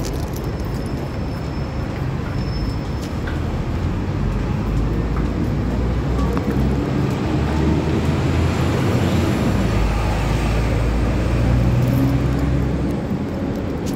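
City street traffic noise: a steady rush with a vehicle engine's low hum that grows louder after a few seconds and fades again near the end.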